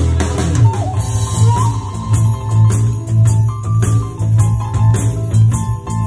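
Music: a Native American flute phrase ends with a falling note at the start, then a steady drum beat with jingling percussion comes in under a held tone.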